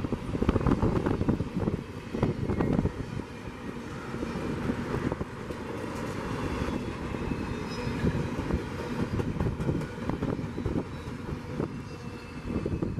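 Double-stack freight train's well cars rolling past, steel wheels rumbling and clicking on the rails. The sound is loudest for the first few seconds, then fades as the last cars go by.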